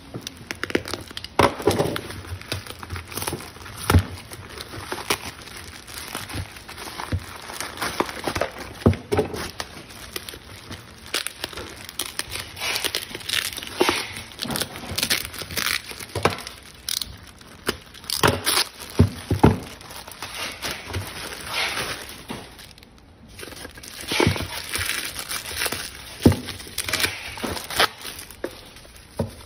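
Plastic parcel packaging being cut open and unwrapped: a mailer bag and bubble-wrap wrapping crinkling and rustling in irregular bursts, with scattered clicks and knocks as they are handled.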